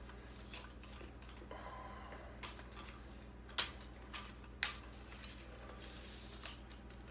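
Phone tripod being handled and set up: scattered sharp plastic-and-metal clicks as the legs are unfolded and their locks snapped, the loudest about three and a half and four and a half seconds in, with a faint sliding hiss near the end as a leg section is pulled out.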